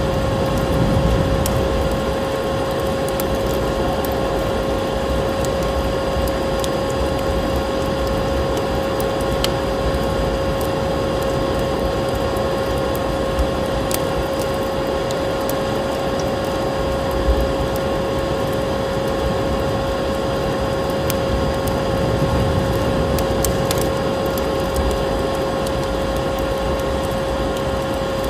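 Vacuum cleaner running with a steady hum, mixed with the scattered sharp crackles of a wood fire.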